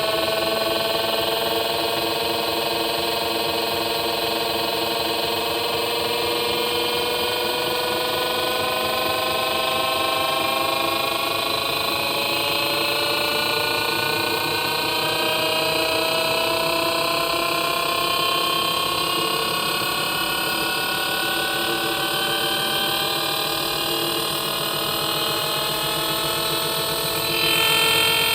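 Panasonic drum-type washing machine's motor whining, several tones rising slowly and steadily in pitch as it speeds up; near the end a higher tone comes in.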